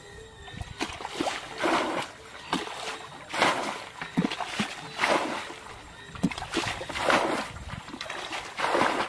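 Shallow muddy water being splashed and sloshed by hands scooping and working through it, a dozen or so irregular splashes.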